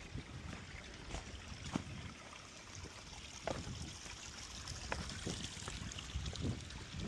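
Water trickling steadily, with a few irregular soft knocks.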